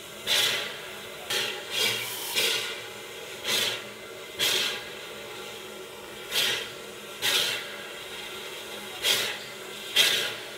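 Steam exhaust puffs from a standing steam locomotive and steam wrecking crane: about ten short chuffs at uneven intervals over a steady background noise.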